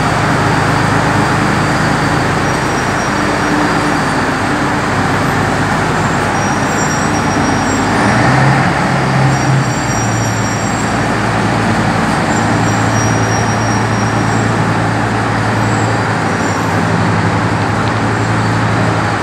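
Heavy-haulage trucks' diesel engines idling in a road tunnel: a steady, loud engine drone with a low hum that shifts slightly about eight seconds in.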